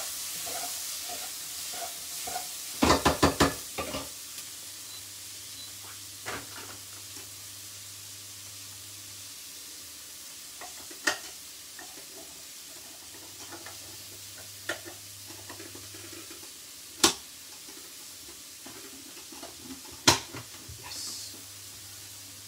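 Chopped peppers and chillies sizzling steadily in a frying pan. A quick run of about six clattering knocks comes around three seconds in, and single sharp clicks and taps follow at intervals as a plastic mini food chopper is handled.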